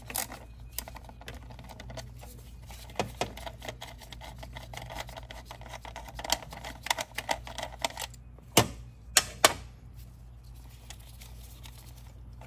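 Hand tools clicking and knocking while working on the B58 engine's spark plugs and ignition coils: scattered clicks, a run of rapid clicking in the middle, and three sharp knocks about two-thirds of the way in.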